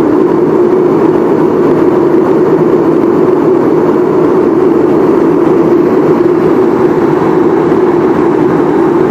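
Aircraft cabin noise in flight: the engines and airflow make a loud, steady drone that does not change.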